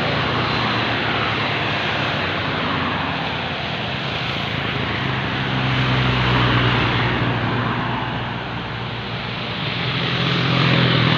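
Intercity buses passing close: a steady low diesel engine drone under heavy tyre and road noise, swelling about six seconds in and again near the end.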